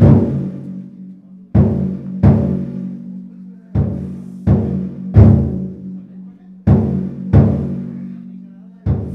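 Taiko drum of a festival float (yatai) beaten in practice: loud strikes about 0.7 s apart in alternating groups of three and two. Each strike rings on as a low, fading boom.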